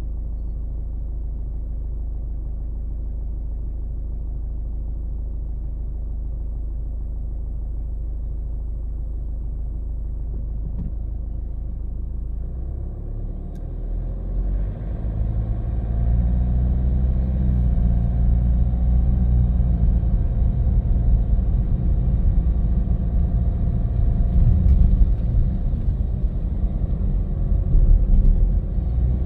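Car engine and road noise: a steady low hum for the first half, then about halfway through it grows louder and fuller as the car picks up speed, and it stays at that higher level.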